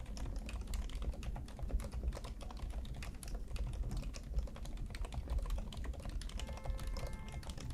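Continuous fast typing on a Varmilo VA108M V3 mechanical keyboard with factory-lubricated Cherry MX2A silent red linear switches, a dense stream of many keystrokes a second.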